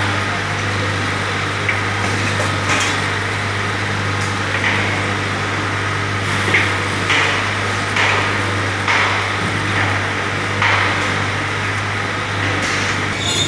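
Garment-factory workroom: a steady low hum, with scattered short taps and rustles from cut cuff pieces and hand tools being handled on the worktable.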